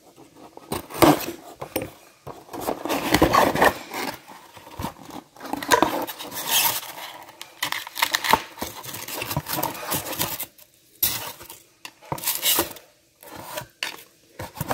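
Craft knife cutting and scraping through a cardboard box and its styrofoam packing, in irregular scratchy strokes, with the cardboard rustling and knocking as it is handled.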